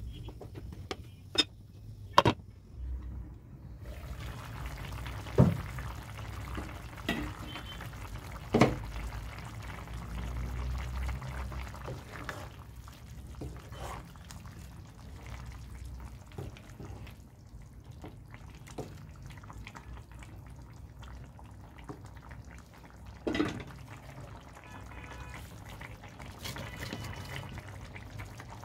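Eggplant and potato curry cooking in a nonstick frying pan: a steady wet sizzle and bubble of the liquid, with a wooden spatula knocking and scraping against the pan several times.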